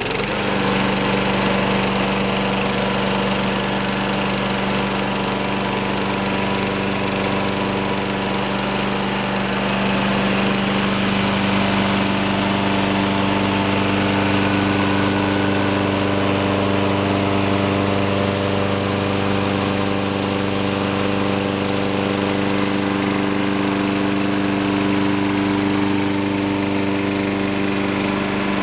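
Sears Craftsman push mower's 6.75 HP Briggs and Stratton single-cylinder four-stroke engine running steadily, just after starting on the first pull.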